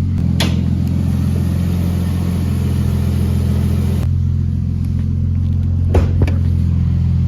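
Nissan RB20 straight-six engine of an R32 Skyline GTS4 idling steadily. Its damaged bottom end, which the owner suspects is a spun bearing, does not knock at idle. A few sharp clicks come about half a second in and again around six seconds in.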